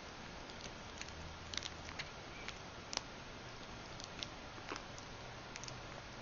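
A kitten moving about, its paws and claws giving light, irregular clicks and taps, about a dozen, over a steady hiss.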